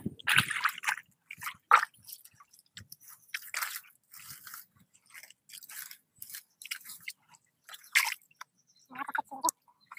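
A bare hand digging into a waterlogged crab burrow: irregular wet squelches of mud and crunches of grass roots being pulled apart.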